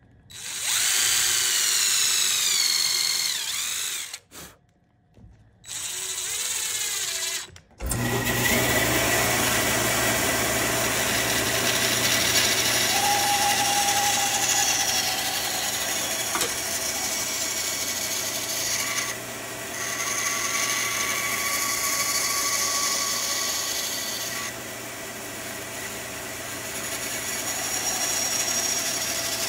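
A cordless drill spins in two short bursts, its whine sagging and recovering under load as it countersinks screw holes in a wooden tray. Then a bandsaw runs steadily, cutting through the wood block.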